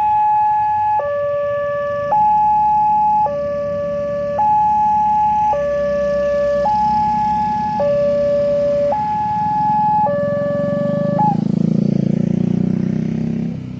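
Railway level-crossing warning alarm: an electronic two-tone signal alternating high and low about once a second, which stops about eleven seconds in as the barrier arm is raised. Then motorcycle engines cross the tracks.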